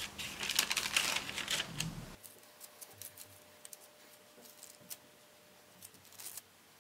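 Hands scattering and pressing grated mozzarella onto raw pide dough on a baking-paper-lined tray, with the paper crinkling and rustling under the fingers. Dense crackly rustling for the first two seconds, then only a few faint ticks.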